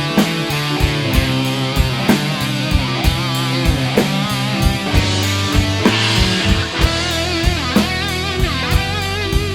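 Instrumental space-rock passage in 6/8: steady drum beat, bass and guitars. A lead line bends and wavers in pitch through the second half.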